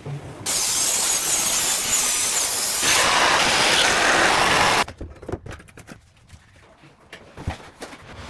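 A power tool running loudly for about four seconds, its sound shifting partway through, then cutting off suddenly.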